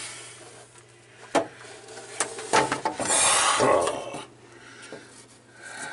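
Wood scraping and rubbing under a double RV sink as the sink and its particleboard brace are worked loose: a sharp knock, a click, then about a second and a half of loud scraping.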